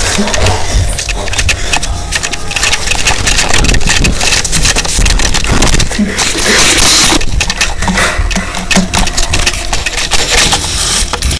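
Loud rough rubbing and scraping with many sharp clicks and knocks, typical of a phone's microphone being jostled and covered as the phone is swung about. A louder hissing rush comes about six and a half seconds in.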